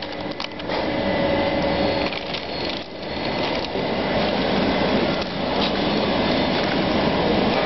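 Conveyor belt roaster running with pine nuts on its wire-mesh belt: a steady mechanical running noise.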